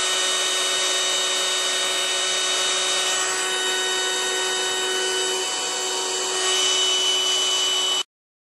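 Countertop vacuum sealer's pump running steadily with a whining hum, drawing the air out of a bag of dried hops before the heat seal. It grows a little louder about six and a half seconds in and cuts off suddenly near the end.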